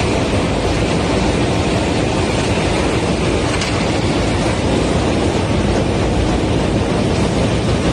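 Corrugated carton converting line running at speed: rollers and conveyors feeding printed, slotted corrugated board sheets, a steady dense mechanical noise with no pauses.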